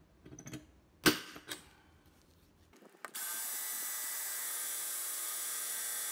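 A hand-pressed center punch snaps once, sharply, about a second in, marking a drilling point on a metal heatsink. About three seconds in, an electric drill starts and runs at a steady, even whine, drilling a hole in the heatsink.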